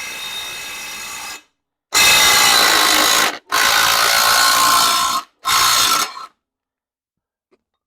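Power tool, a drill-type driver, running in four short bursts of one to two seconds with brief stops between, spinning nuts off rear suspension bolts.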